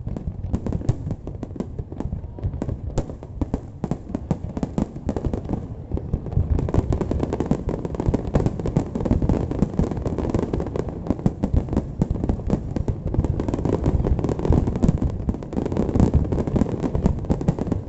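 Fireworks going off in a dense, continuous run of bangs and crackles over a low rumble, growing busier about six seconds in.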